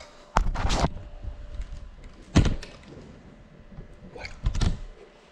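Three sharp knocks with a short rustle after each, close to the microphone, about two seconds apart.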